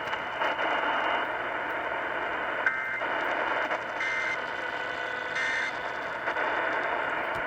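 Three short bursts of EAS SAME digital data tones, warbling between two high pitches, about a second and a half apart, over steady radio static. Bursts this short are the end-of-message code that closes an alert.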